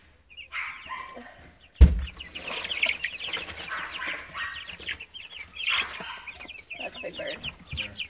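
A brooder full of young chickens peeping and chirping, a dense flurry of short falling cheeps, with one sharp thump about two seconds in followed by rustling as the birds move about.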